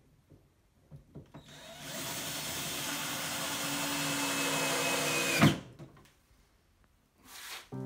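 Cordless drill-driver running steadily for about four seconds as it drives a screw into a kitchen hood's perforated metal panel. It ends in one sharp knock, then gives a short whir near the end.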